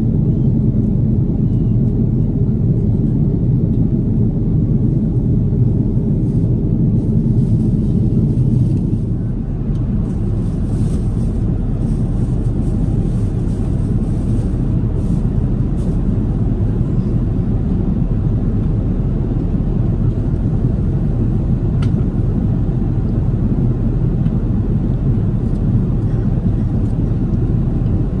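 Steady low rumble of airliner cabin noise in flight, from the Airbus A330neo's Rolls-Royce Trent 7000 engines and the airflow, heard inside the cabin at a window seat. It gets a little quieter about nine seconds in.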